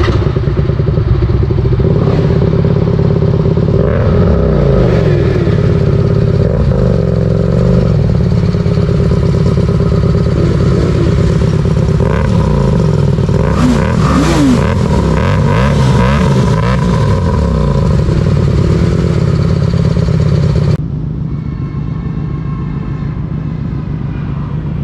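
Several sport motorcycles idling and revving close by, their engine pitch rising and falling with repeated blips of the throttle. About 21 seconds in the sound drops suddenly to a quieter, steady engine note.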